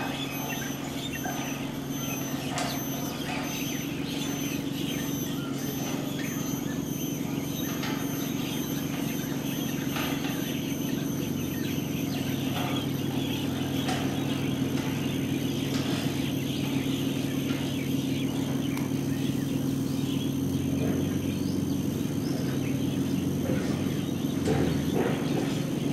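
Layered field-recorded soundscape: a steady low hum with scattered bird chirps over it, and a faint high pulsing tone during the first several seconds.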